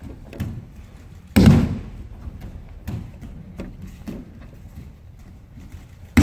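Two heavy thuds of a body landing on tatami mats in aikido breakfalls (ukemi), about a second and a half in and again at the very end, with lighter knocks on the mat between.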